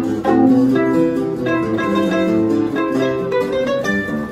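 Bandolim and seven-string nylon-string guitar playing an instrumental duet: quick plucked melody notes on the bandolim over a running bass line on the guitar.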